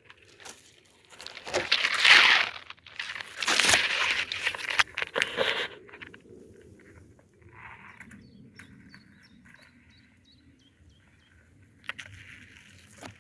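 Footsteps crunching and rustling through dry forest undergrowth, in two loud spells of a couple of seconds each, then only light rustling.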